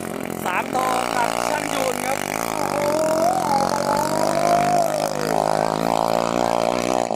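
13-horsepower engine of an iron racing boat running at full throttle, a dense droning note whose pitch wavers up and down as the boat speeds down the river.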